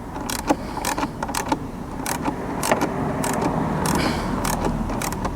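Socket wrench turning a thread-locked steel bolt: a string of irregular metallic ratchet clicks, with a grating, creaking stretch in the middle as the bolt turns against the thread locker.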